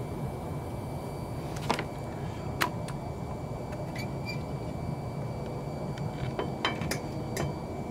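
Scattered light clicks and taps of car parts being handled, with a brief squeak about four seconds in, over a steady low background hum.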